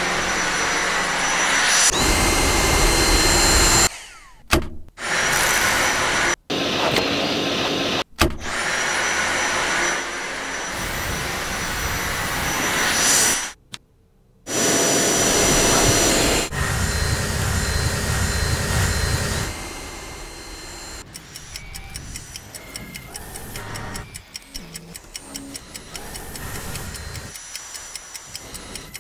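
Dyson V8 Animal cordless stick vacuum running: a steady motor whine over rushing air, in several stretches that cut off and restart abruptly. From about twenty seconds in it is quieter, with a rapid ticking.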